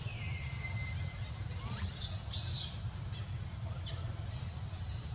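High-pitched animal calls: a thin whistle falling then held for about a second and a half, then two short squeaky calls about two seconds in, over a steady low rumble.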